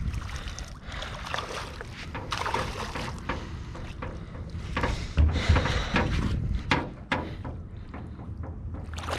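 Water sloshing and splashing as a shot carp is drawn in through shallow weedy water, with scattered knocks and a low rumble of wind on the microphone.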